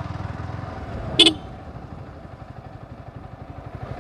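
Yamaha R15 single-cylinder four-stroke engine running at low riding speed, a steady low throb, with a short horn beep a little over a second in.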